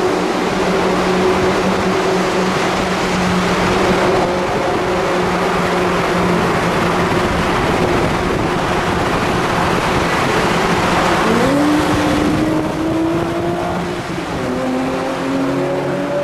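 Sports car engines and exhausts running hard in a tunnel: a loud, continuous wash of engine and tyre noise. About two-thirds of the way through, an engine note climbs as a car accelerates, and it climbs again near the end.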